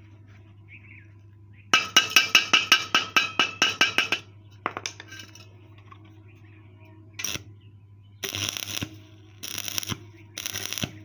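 A quick run of ringing metallic taps on the steel tube, about five a second for two seconds. After a pause, a stick-welding arc crackles in short bursts of under a second each, struck and broken again and again to build weld up over a large hole in the square tube.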